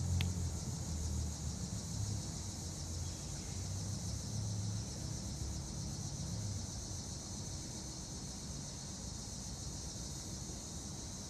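Steady high-pitched trilling of insects, with a low rumble of city traffic underneath.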